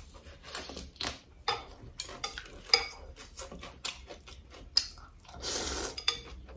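Chopsticks clicking and tapping against a glass bowl of noodle soup, in many quick sharp strikes, as noodles are lifted out. Near the end comes a longer, hissing stretch as a mouthful of noodles is slurped.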